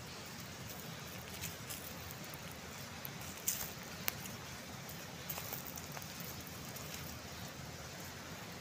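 Steady rushing of a mountain river, with a few scattered crackles and sharp clicks over it, the loudest about three and a half seconds in.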